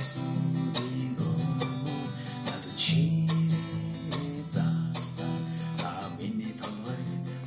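Acoustic guitar being strummed, moving through a series of chords about every second, with the hardest strum about three seconds in.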